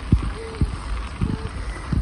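Wind buffeting the microphone of a moving bicycle in low, gusty thumps, over the steady hiss of bicycle tyres rolling on a crushed-stone trail.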